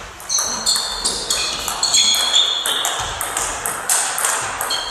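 Table tennis rally: the ball clicking off rackets and the table about three times a second, each hit with a short high ping.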